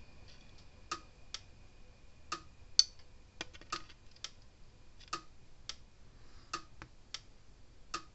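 Sharp electric ticks roughly once a second, some in quick pairs, from a pulsing Gallagher electric fence energizer and its pulse sparking across the screw-set spark gap of a Gallagher lightning diverter. The gap is set close enough to arc, and it is being backed off until the sparking stops.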